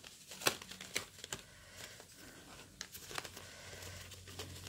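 Paper being handled: banknotes and savings-challenge sheets rustling and crinkling softly, with several sharp clicks and taps.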